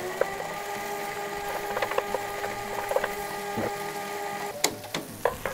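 A small motor spins up to a steady, high-pitched hum and cuts off suddenly after about four and a half seconds, with scattered light taps throughout.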